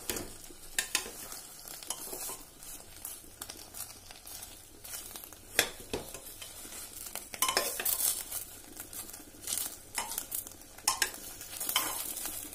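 Metal spatula scraping and knocking against the inside of an aluminium pressure cooker as banana-leaf-wrapped fish parcels are lifted and turned, with irregular clicks and scrapes. Light sizzling comes from the hot, oiled cooker base.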